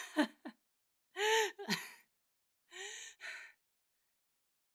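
A man's breathy sobs and sighs in about five short bursts, the strongest a longer pitched cry that rises and falls about a second in.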